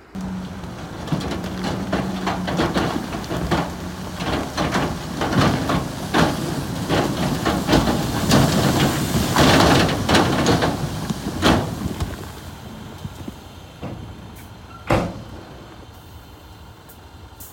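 Rocks and soil clattering and tumbling as heavy earthmoving machinery works a load of rock, over a heavy machine's running engine. The clatter builds to a dense rush about halfway through, then thins out, with one sharp knock near the end.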